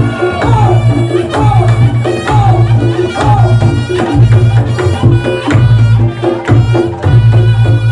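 Reog Ponorogo gamelan ensemble playing, led by kendang hand drums in an even, driving rhythm over a repeating low pulse. A swooping melodic line rises and falls over the beat in the first half.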